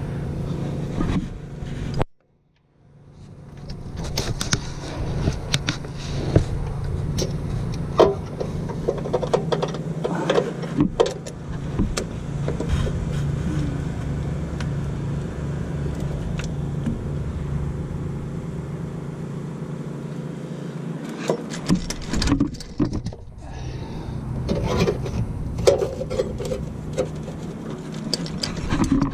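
Hand tools and metal parts clinking, knocking and scraping while the AC compressor's mounting bolts are worked loose, over a steady low hum. The sound drops out briefly about two seconds in.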